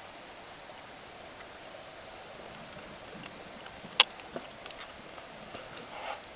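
Underwater sound picked up by a camera in a waterproof housing: a steady hiss with scattered clicks and ticks, the sharpest one about four seconds in.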